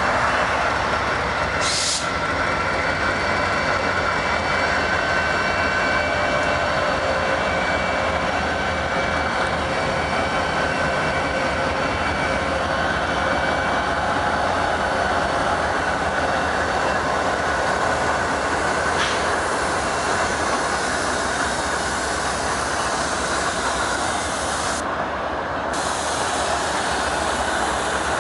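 Freight train cars rolling past, steady rail noise with thin high wheel squeal tones running through it and a couple of brief clanks.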